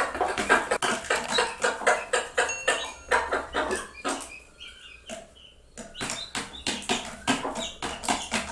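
Mother hens calling their chicks with quick short clucks, about five or six a second, mixed with chicks cheeping. The calling pauses about halfway through.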